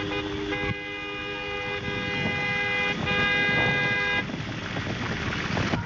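Car horns sounding in long held blasts, the honking of a wedding car convoy as it sets off: one blast runs from about half a second in to about three seconds, and another runs on to about four seconds. After that the horns stop and only a rush of vehicle noise remains.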